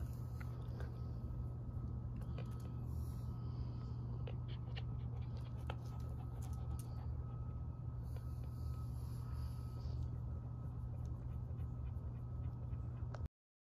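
A dog panting close by while being petted, over a steady low hum and scattered light clicks. The sound cuts off abruptly near the end.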